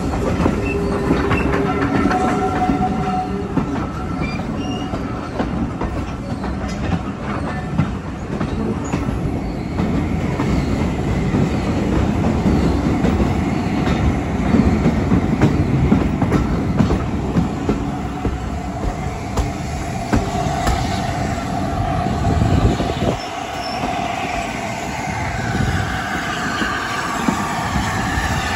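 Railway passenger coach rolling slowly over jointed track: a steady rumble with wheels clicking over rail joints and brief squeals from the wheels, heard from an open coach window. About 23 seconds in, the sound changes and thins out.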